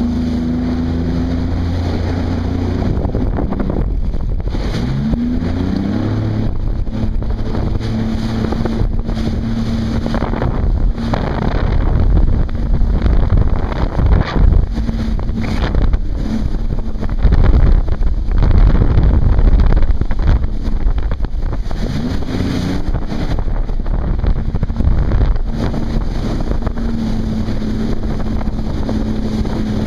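Jet ski engine running at speed, with wind buffeting the microphone and water spray off the hull. The engine pitch rises as the throttle opens about five seconds in and again about twenty-two seconds in, and the middle stretch is louder and rougher.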